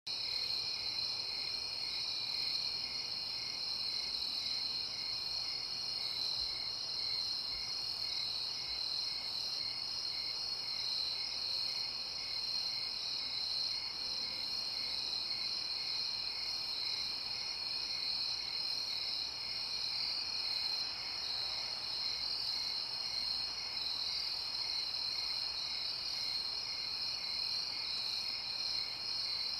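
Night-time chorus of crickets trilling steadily, with a second regular chirp pulsing about twice a second beneath the main trill.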